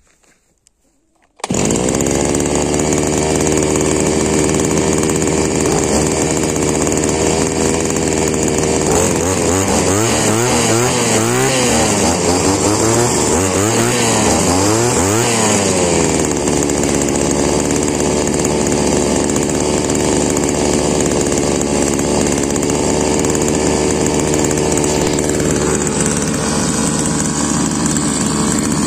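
Two small two-stroke Chinese brushcutter engines running together, one fitted with a 43 cc cylinder. The engine sound starts abruptly about a second and a half in and runs steadily, and between about 9 and 16 seconds the pitch swings up and down again and again as the engines are revved.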